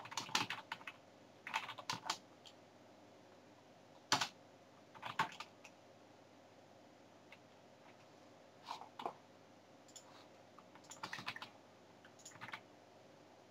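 Computer keyboard typing in short bursts of keystrokes, separated by pauses of one to three seconds.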